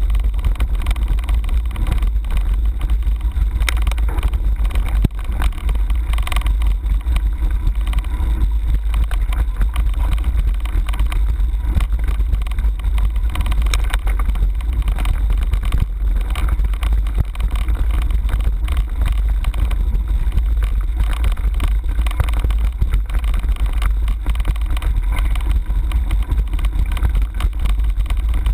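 Mountain bike riding a rough dirt track, heard through a handlebar-mounted camera: a steady deep rumble of wind and vibration on the microphone, with tyre noise and an occasional knock or rattle from the bike.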